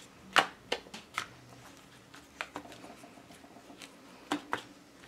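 Rubber stamping by hand: an ink pad and a clear acrylic stamp block knocked and pressed onto paper on a table, about seven light, sharp taps at an uneven pace.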